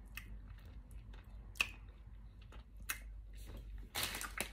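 Mouth sounds of eating an ice cream bar: scattered wet lip smacks and mouth clicks while sucking the wooden stick, the sharpest about a second and a half in and again near three seconds. A rustling noise starts near the end.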